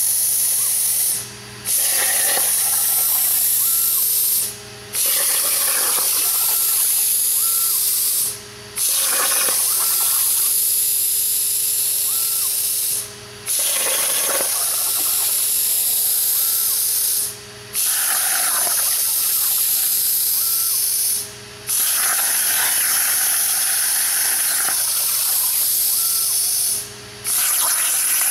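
Hypertherm plasma cutter hissing steadily as its arc cuts through steel plate on a CNC table. The hiss drops away seven times for about half a second and comes straight back, as the arc stops between cuts and re-pierces the plate.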